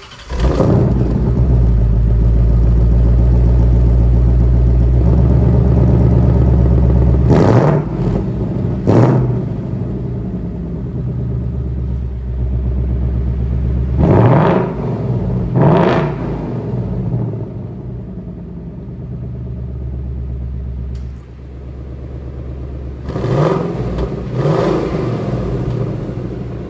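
A 2023 Ford Mustang GT's 5.0-litre V8 with the stock Ford Performance active-valve exhaust starts and runs at a loud, steady idle for about seven seconds. It is then revved in three pairs of quick blips with calmer idling between them. The middle pair comes with the valves in track mode, and the last pair, near the end, is softer.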